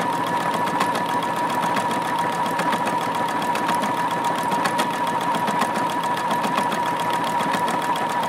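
Juki F600 computerized sewing machine running steadily, sewing a random arrowhead decorative stitch: a steady motor whine under a rapid, even ticking of the needle mechanism.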